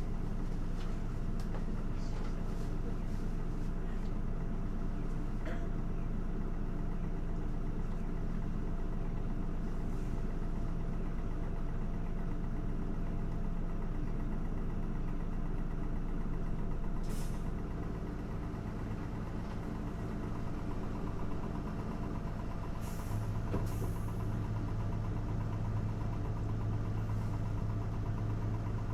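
Hino Blue Ribbon city bus's diesel engine idling steadily, heard from inside the passenger cabin, with a couple of short hisses. Late on, a low hum in the engine note grows louder and holds.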